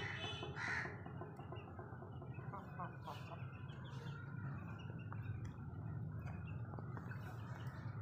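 Outdoor bird calls from a yard of chickens: short scattered calls and clucks, one louder call about a second in, over a steady low background rumble.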